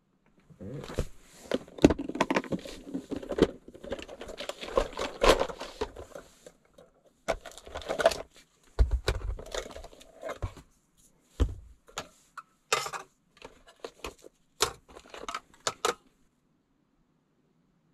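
Things being handled: rustling with irregular clicks, clinks and knocks. It stops suddenly about two seconds before the end.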